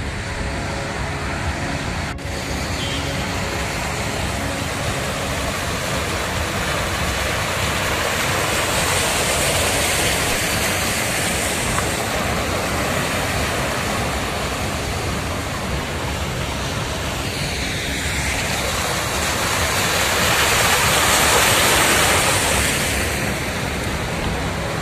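Vehicles driving through floodwater on a street: a steady rushing hiss of tyres in standing water, swelling twice, about a third of the way in and again near the end.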